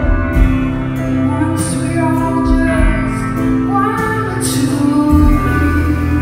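A woman singing live with a band, electric guitar among the instruments, heard from the audience in a concert hall.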